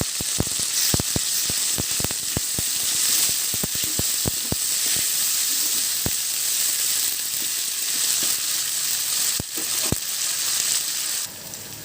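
Onion-tomato masala with ginger-garlic paste sizzling in hot oil in a pan. A spoon clicks and scrapes against the pan as it is stirred, often in the first half and only now and then after that. The sizzle drops off suddenly near the end.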